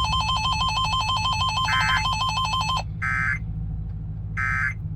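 Emergency Alert System tones: a warbling, buzzy electronic alert tone cuts off about three seconds in, then three short bursts of SAME digital data screech about a second apart. These are the coded bursts that mark an alert message.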